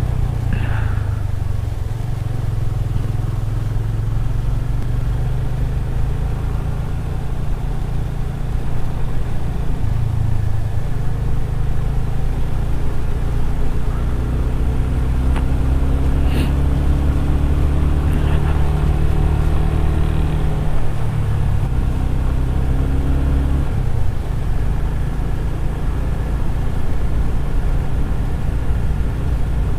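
Yamaha motorcycle's engine running steadily under way, its note shifting in pitch a few times. It rises in pitch for several seconds past the middle as the bike speeds up.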